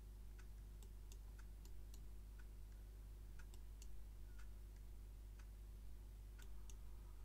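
Faint, irregularly spaced clicks of a computer mouse and keyboard over a steady low hum.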